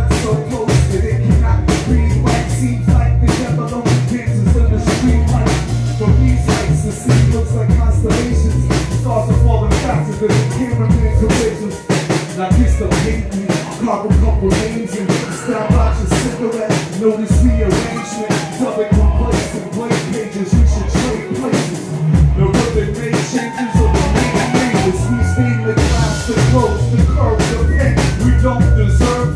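A live jazz and hip-hop band playing an instrumental passage: a drum-kit groove of kick and snare hits over a deep bass line, with a few held higher notes near the end.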